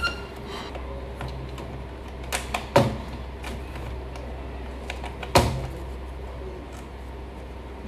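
Sharp plastic-and-metal clacks of a Ricoh IM C2000 copier's parts being handled: three close together about two and a half seconds in and one louder knock about five and a half seconds in, over a steady low hum.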